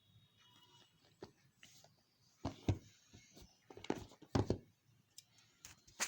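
A phone's retail box being handled and opened: a series of knocks and scrapes. The loudest are a pair of thuds about two and a half seconds in and two more around four to four and a half seconds in.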